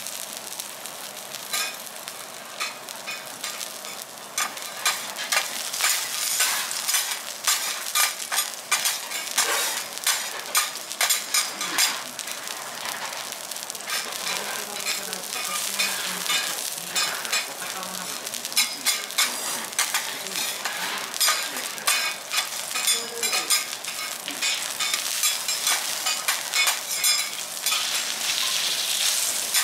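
A thick wagyu beef tenderloin searing on a teppanyaki hotplate: steady sizzling with quick, dense crackling and spattering as fat and juices fry off, growing busier about four seconds in.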